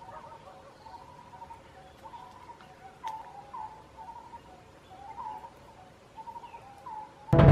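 A forest bird calling over and over, short low hooked notes roughly once a second, with a few faint clicks. Near the end, loud synthesizer music cuts in suddenly.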